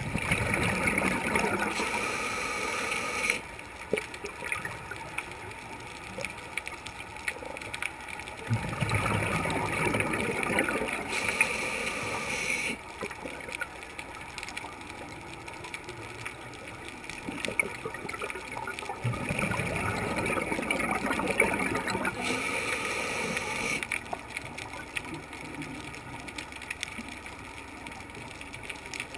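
Scuba diver breathing through a regulator, heard through an underwater camera housing: three bubbly exhalations of three to four seconds each, about ten seconds apart, with quieter stretches between.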